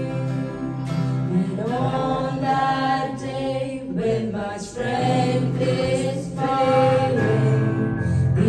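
Live worship music: several voices singing together in long held notes, accompanied by keyboard and acoustic guitar.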